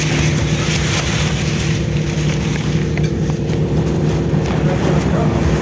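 Steady low drone of a ship's machinery, with several constant hum tones and no change in speed. Wind noise hisses over the microphone during the first two seconds, then eases.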